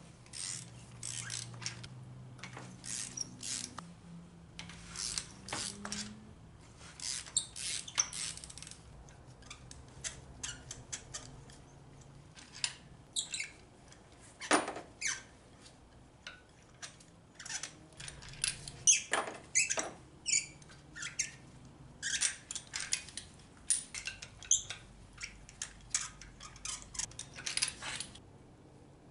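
Socket ratchet on an extension clicking in quick runs as spark plugs are turned in the cylinder head, with squeaks among the clicks. The clicking comes in bursts of several seconds with short pauses between, thinning out in the middle.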